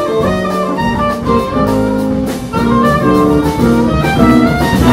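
Live small-group jazz: a soprano saxophone plays a line of short stepping notes over guitar, piano, bass and a drum kit with cymbals.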